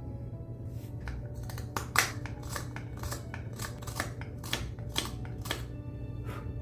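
Hand carving tool cutting into silver ash wood, with short, sharp slicing strokes about twice a second; the loudest comes about two seconds in.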